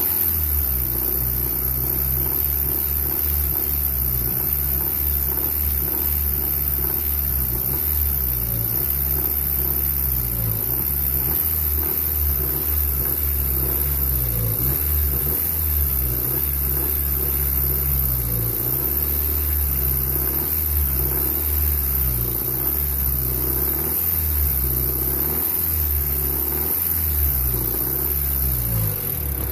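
1994 Honda Accord's 2.2 VTEC four-cylinder engine revved up and down repeatedly to bring out a knocking noise. The owner takes the knock for bad rod bearings slapping on the crankshaft.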